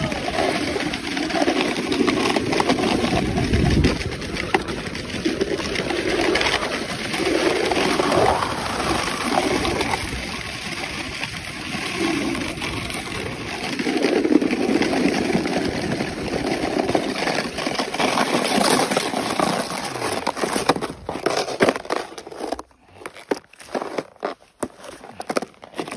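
Snowboard sliding down a packed-snow road: a steady rushing hiss with uneven low swells of wind buffeting the microphone. From about 21 seconds in, the sliding stops and the sound breaks into short knocks and rustles as a boot is worked on the snowboard's binding.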